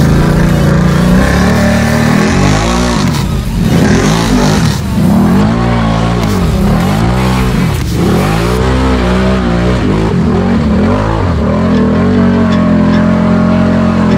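Can-Am ATV's V-twin engine revving up and down again and again as it pushes through deep muddy water, with mud and water splashing. The revs are steadier at the start and near the end.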